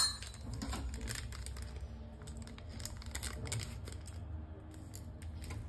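Light clicks and crinkling of a small instant-coffee sachet being handled and opened.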